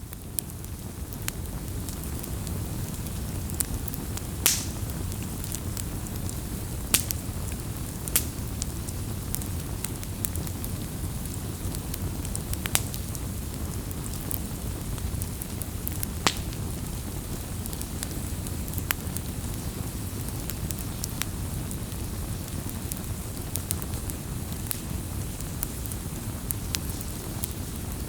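Wood campfire burning: a steady low rumble of the flames with irregular sharp crackles and pops, a few louder snaps scattered through.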